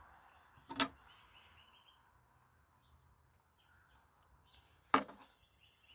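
Faint outdoor background with birds chirping, and two sharp knocks, one about a second in and a louder one near the end: a knife slicing through a smoked bologna log and striking a wooden cutting board.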